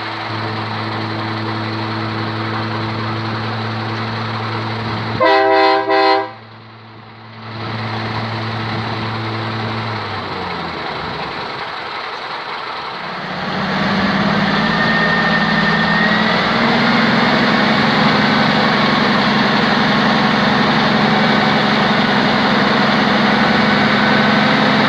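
International cabover dump truck's diesel engine idling. About five seconds in, its horn sounds in two short blasts. About 13 seconds in, the engine speeds up and holds steady under the load of the hydraulic hoist raising the loaded dump bed, with a faint high whine over it.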